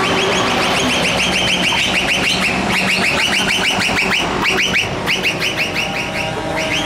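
A truck's electronic novelty horn giving a fast string of identical rising chirps, about six a second, that breaks off briefly a few times in the second half. Diesel truck engines run underneath.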